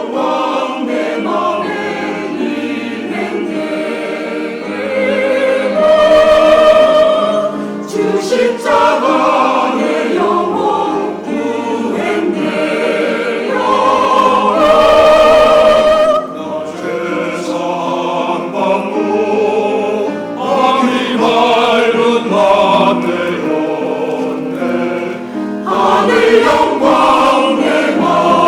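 Church choir singing a hymn anthem in parts, continuous throughout.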